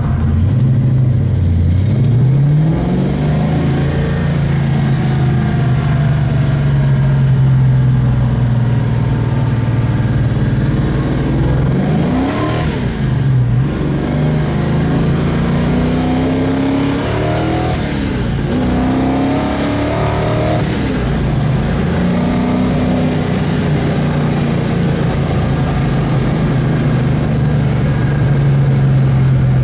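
The 390 cubic-inch S-code V8 of a 1967 Ford Mustang, heard from inside the cabin while driving. Its pitch climbs at the start, then holds steady. Through the middle it rises and drops several times as the four-speed manual goes through the gears, then settles into a steady cruise.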